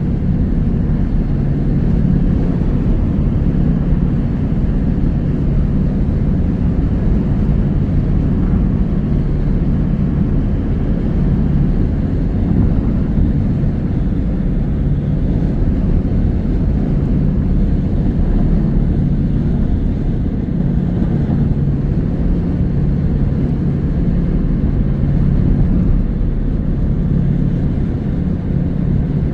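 Steady engine and road noise of a moving car, heard from inside the cabin as an even low rumble with a faint hum.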